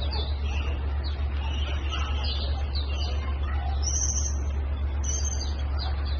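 Small birds chirping repeatedly in quick high notes, over a steady low hum.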